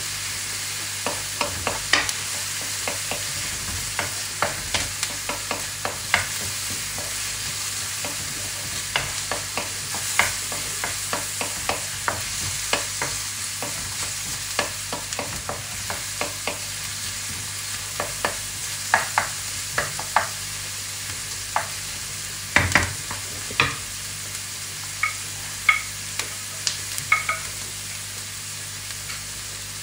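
Diced onion frying in oil in a wok, a steady sizzle, with a wooden spoon stirring and scraping against the pan in frequent short clicks and taps. One louder knock comes about two-thirds of the way through.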